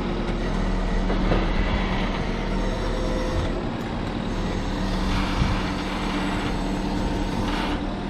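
Engine running steadily: a low rumble with a steady hum and a few higher tones over it.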